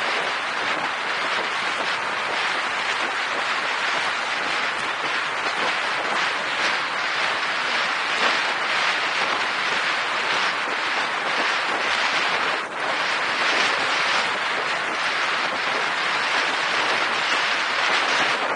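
Steady rushing wind and road noise from a bicycle ride along a road, with wind buffeting the microphone.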